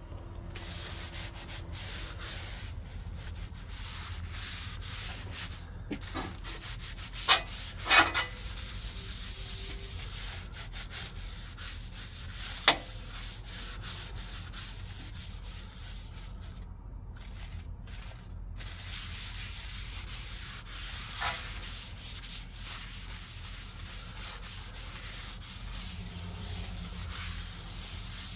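Wad of paper towel held in tongs rubbed back and forth over the hot steel plate of a 17-inch Blackstone griddle, a steady scratchy wiping as oil is spread to season the surface. A few sharp clicks stand out, loudest about seven to eight seconds in and again near thirteen seconds.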